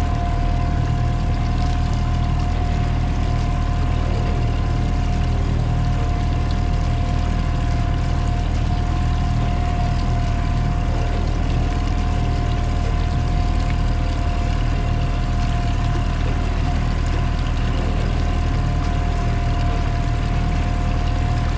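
Boat motor running steadily while the boat trolls, a low hum with a steady high whine over it.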